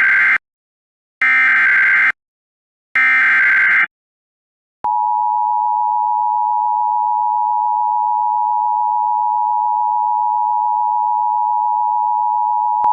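Emergency Alert System SAME header for a severe thunderstorm warning: three loud, screeching data blasts of about a second each, the first already under way. About five seconds in, the EAS two-tone attention signal starts, a steady tone of two close pitches sounding together.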